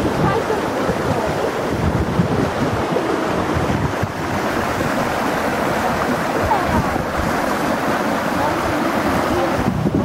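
Shallow, fast-flowing muddy stream rushing over a path and splashing down over stones in a small cascade: a steady rushing noise.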